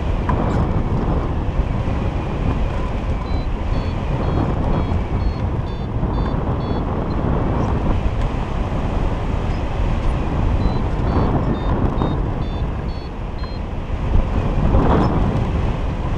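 Wind rushing loudly and steadily over the microphone of a camera on a hang glider in flight. Twice through the middle, a variometer beeps in quick short high pips, its signal that the glider is climbing.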